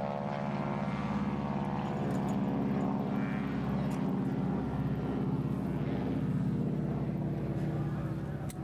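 A light aircraft's engine and propeller running steadily, an even drone.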